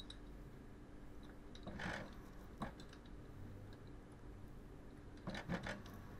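Hand broaching of a keyway on a small lathe: a ground tool bit pushed through a pulley bore by the saddle crank, taking a very light pass. A faint scrape comes about two seconds in, followed by a click, and a few light clicks come near the end.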